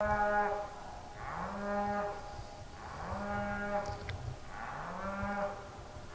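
Cattle bawling over and over: four short calls about a second and a half apart, each rising at the start and then held on one note.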